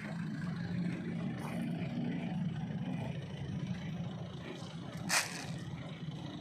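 Diesel engine of road construction machinery running steadily with a low rumble. A short, sharp noise cuts in about five seconds in.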